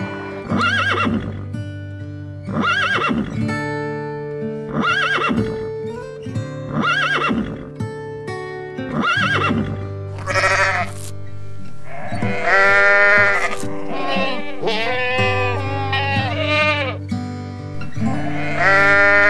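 Background music with animal cries over it: a short call repeated about every two seconds in the first half, then longer wavering cries, the last near the end a goat bleating.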